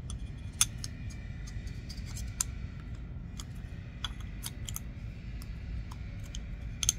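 Light, irregular clicks and taps of small knife parts as a carbon-fibre handle scale is fitted onto a folding knife, the sharpest click about half a second in and another just before the end.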